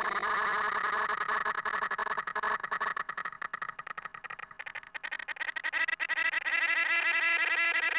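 Cartoon soundtrack run through heavy audio effects: a pitched, warbling sound chopped into rapid stutters. It dips and thins out around the middle and comes back louder near the end.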